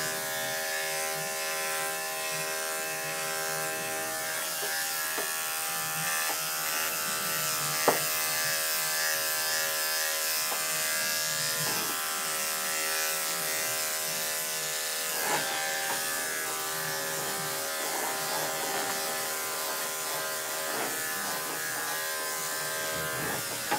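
Andis five-speed electric dog clipper running with a steady hum while shaving a small dog's coat, with one short click about eight seconds in.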